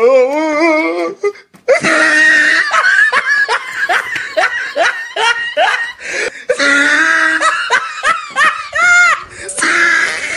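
People laughing loudly in quick repeated 'ha-ha' bursts, with giggles in between.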